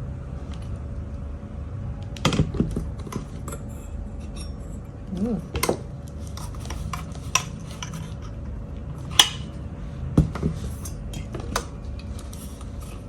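Stainless steel grinder and its parts being handled, with scattered light metallic clinks and knocks.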